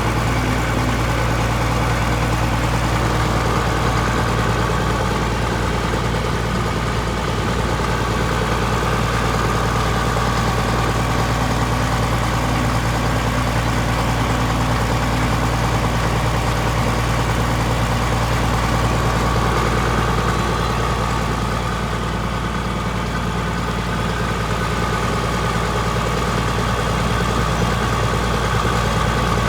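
Caterpillar D6 bulldozer's diesel engine running steadily at work, a low drone with a steady whine above it.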